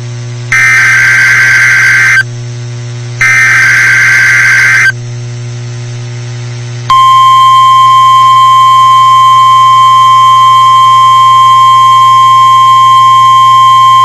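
Emergency Alert System transmission on NOAA Weather Radio: two harsh, buzzy SAME header data bursts, each under two seconds and about a second apart, then after a short pause, about seven seconds in, the steady single-pitch 1050 Hz warning alarm tone starts, over a constant low hum. It is the alert that opens a Tornado Watch message.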